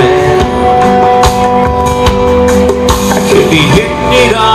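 Country rock band playing live and loud: strummed acoustic guitar with electric guitar and bass, and regular percussive hits keeping the beat.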